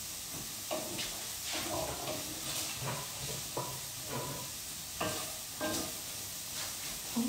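Steady sizzle of bacon and garlic frying in a pan, with a series of short clinks and knocks from utensils and a chopping board.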